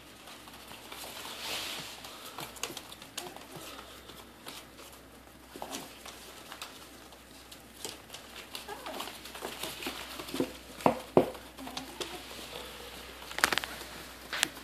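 Miniature dachshund puppies scrambling about on newspaper in a cardboard box: crinkling paper and the patter and scratch of small paws, with a few sharper knocks in the second half.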